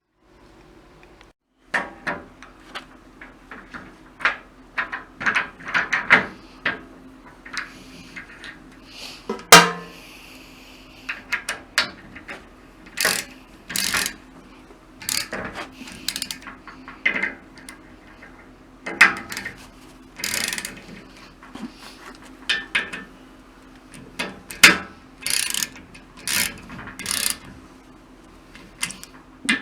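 Irregular metallic clicks and knocks of hand tools being handled and worked on saw teeth, a few sharper strikes among them, over a faint steady hum.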